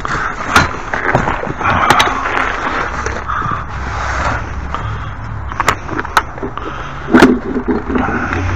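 Hands rummaging and handling small metal hardware and tools: steady scraping and rustling with sharp clicks and knocks every second or so, the loudest knock about seven seconds in.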